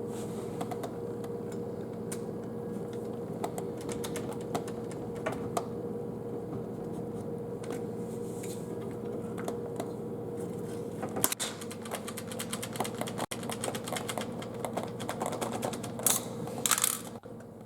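Rapid taps, clicks and scrapes of hand tools working an old dishwasher's leveling feet loose from under laminate flooring, thicker in the last several seconds, over a steady low hum.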